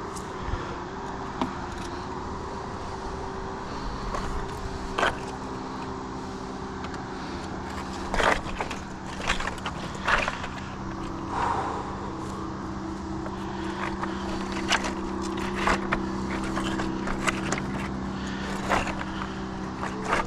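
Footsteps on rock: scattered short knocks and scuffs of boots on stones, bunched in the middle and again later. Under them runs a steady low drone of motor traffic, a few engine tones that shift slightly in pitch.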